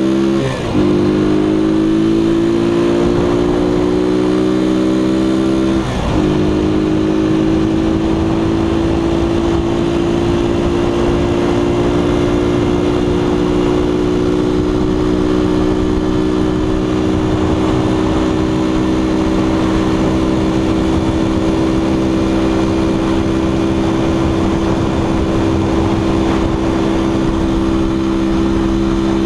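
Keller Crono 110 scooter's small single-cylinder four-stroke engine running hard while riding along a road. Its pitch dips briefly and climbs back twice, about half a second in and about six seconds in, then holds steady at high revs, with wind rushing over the microphone.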